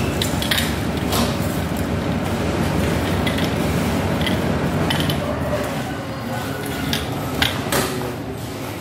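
Stainless-steel rods and blue plastic end pieces of a towel drying rack clinking and clicking as they are handled and fitted together, a few sharp clicks at uneven intervals, the loudest near the end. A steady low rumble runs underneath.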